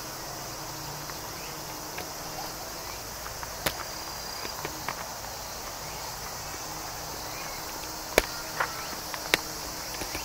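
Steady, high-pitched chorus of insects chirring in the trees at dusk. A few sharp taps or clicks cut across it, the loudest about eight seconds in.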